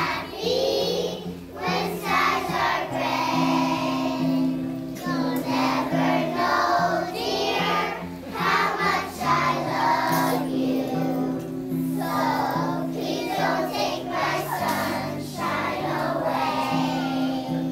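A group of young children singing together as a choir, over instrumental accompaniment of sustained notes that change pitch in steps.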